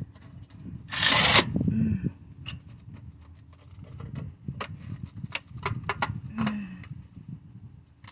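Swamp cooler pads and panel being handled as the pads are worked into place: a loud rustling scrape about a second in, then scattered clicks and knocks.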